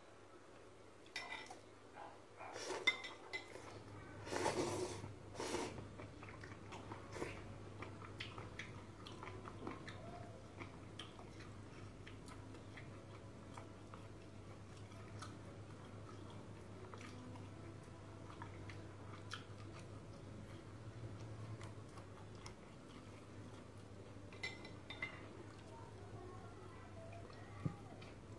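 Blue crayfish feeding on dry ramen noodles, making crisp crunching and clicking sounds. There is a cluster of louder crunches in the first few seconds and another near the end, with small scattered ticks between.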